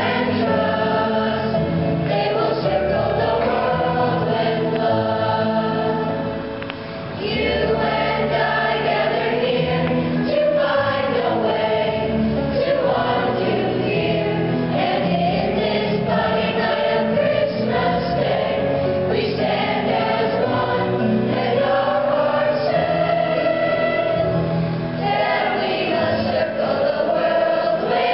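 Children's choir singing together, with a short break between phrases about seven seconds in.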